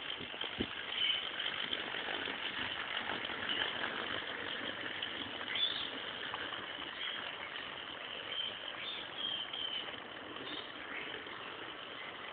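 Garden-railway model train running along the track: a steady light running noise of wheels on rail, with short high bird chirps now and then.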